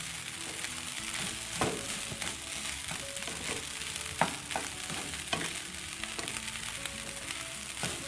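Rice sizzling in a nonstick wok while a spatula stirs and tosses it, with a sharp scrape or tap of the spatula on the pan about once a second.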